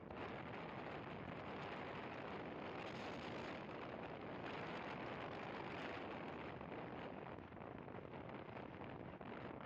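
Steady wind rush and road noise on a camera riding a motorcycle at highway speed, about 85 km/h, with no distinct engine note standing out.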